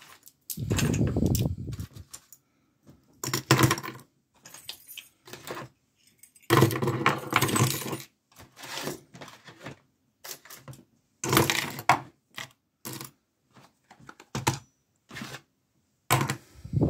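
Metal padlocks being set down and piled onto a wooden desk, clinking and clattering against each other and their shackles in several bursts with short pauses between.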